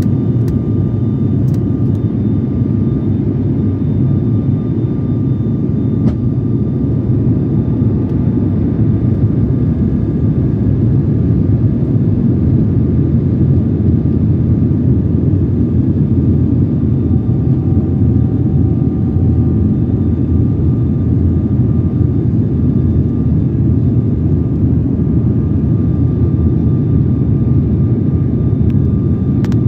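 Airliner engines and airflow heard from inside the passenger cabin during the descent to land: a steady, loud low roar with a faint constant whine above it.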